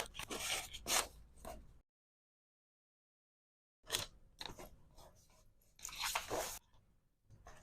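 Close-up handling sounds of packing resin hair clips: short crinkly scrapes and taps, broken by about two seconds of dead silence, then more crinkles and a longer scrape near the end.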